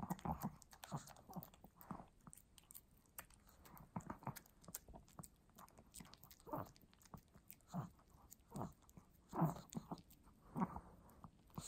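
Pomeranian eating wet dog food from a plate: irregular chewing and smacking sounds.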